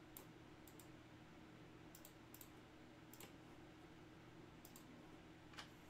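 Faint, scattered clicks of a computer mouse and keyboard, about a dozen sharp ticks at irregular spacing as a list is copied and pasted, over a low steady room hum.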